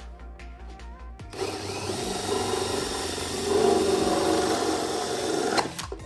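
Cordless drill driving a hole saw through a plastic plunger-valve nozzle to cut off its head. The cut starts about a second in, grows louder midway and stops abruptly near the end.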